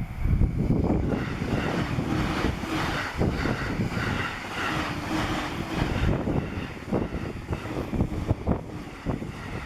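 Strong wind buffeting the microphone, with a train running past in the background.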